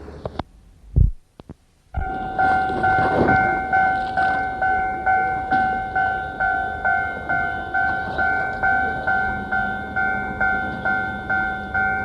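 Railway level-crossing warning bell starting up and ringing in a steady, evenly repeated ding, a little over two strikes a second, heard off an old cassette tape recording. Just before it starts there are a couple of clicks and a thump, then a moment of near silence.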